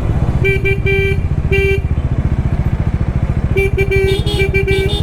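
Bajaj Dominar 400's single-cylinder engine running with a steady low thrum while vehicle horns honk in traffic: a few short toots about half a second in, then a longer run of repeated honks from about three and a half seconds, with a second horn joining.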